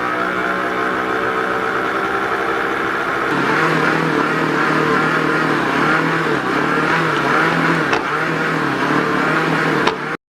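Electric stand mixer motor running steadily while mixing yeast dumpling dough. About three seconds in its pitch drops and the sound begins to waver in a regular cycle as the dough is worked; it cuts off suddenly near the end.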